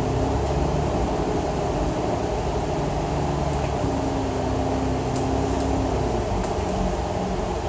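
Citybus bus running along the road: a steady engine hum and road noise, with a low tone that holds for about two seconds midway.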